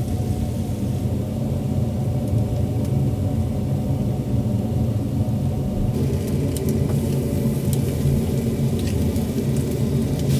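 Steady low rumble of a restaurant kitchen's extractor fan, with light crackling from the charcoal grill starting about six seconds in.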